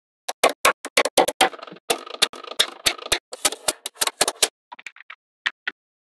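Small magnetic balls clicking and snapping together as a cluster is pressed onto a wall of magnet balls: a quick, irregular run of sharp clicks with a light rattle between them, thinning to a few fainter clicks near the end.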